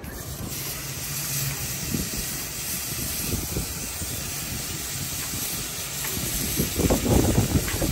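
Steady hissing noise that starts abruptly, over a low rumble that grows louder near the end.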